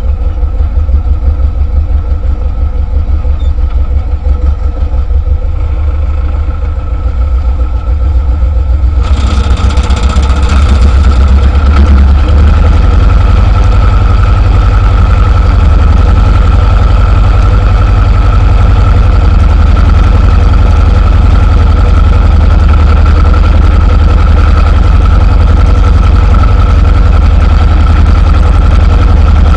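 T-25 tractor's two-cylinder air-cooled diesel running with a steady low throb. About nine seconds in the sound grows louder and fuller, with a steady whine added, and then runs evenly.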